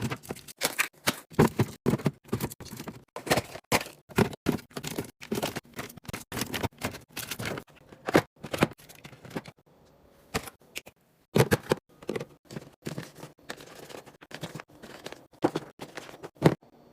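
Items being handled and set down: a quick, irregular string of clicks, taps and knocks, several a second, pausing briefly about ten seconds in.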